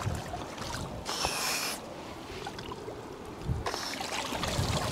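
Shallow sea water sloshing and splashing around wading legs as a small yellow underwater drone is reached and grabbed by its handle, with a steadier rush of water from about three and a half seconds in.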